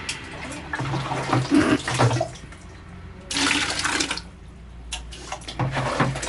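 Wet fermented rice mash (jaand) being scooped by hand with a metal pot from a plastic drum and tipped into a plastic bucket: irregular sloshing and slopping, with a louder splash a little past halfway.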